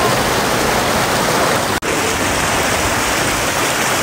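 Loud, steady rush of river water, like rapids or a small waterfall, with a split-second break a little before halfway.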